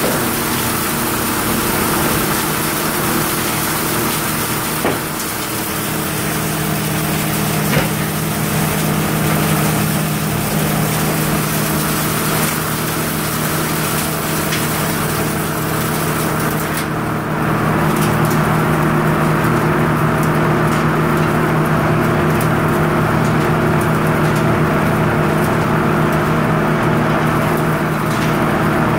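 Circular sawmill machinery running with a steady loud drone, with a couple of sharp knocks in the first third. About seventeen seconds in the sound shifts and then runs on steadily.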